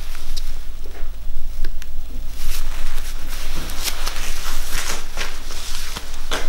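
Close, irregular rustling and scuffing from a racing pigeon being handled: the wing spread and the bird moved from hand to hand.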